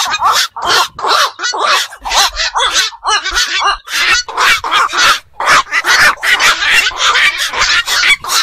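Black-crowned night herons calling: a rapid, almost unbroken run of short, harsh, bark-like calls.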